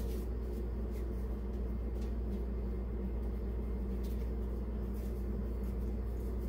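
Steady low background hum, with a few faint soft rubbing sounds from floured hands working a small ball of dough.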